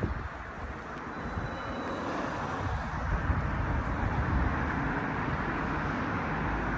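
Steady low rumble of street traffic, swelling a little over the last few seconds.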